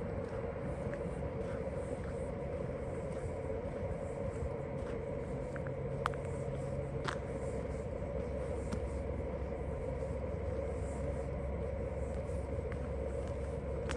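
Steady outdoor city rumble and hum of distant traffic, with two sharp clicks about halfway through.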